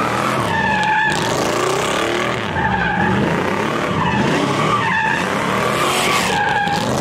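Fox-body Ford Mustang convertible doing donuts: its rear tyres squeal in a wavering tone that swells every second or two as the car circles. Underneath, the engine runs and its pitch rises and falls.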